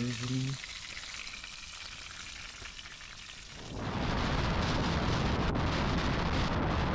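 Food sizzling in a frying pan, then, just past halfway, an abrupt switch to loud wind buffeting the microphone.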